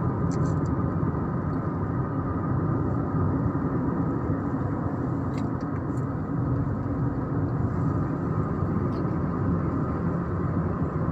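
Steady road noise of a moving car heard from inside the cabin: engine and tyres running evenly, with no change in speed.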